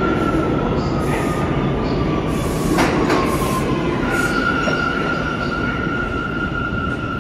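New York City subway train running through the station, its steel wheels squealing on the rails in a steady high tone over rumbling clatter. A sharp clank about three seconds in, with short hisses, and a second, slightly higher squeal starting about four seconds in.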